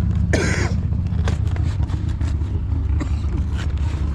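A steady low rumble throughout, with a short crinkling rip of packaging about half a second in and a few light clicks and taps as a collector box is handled and opened.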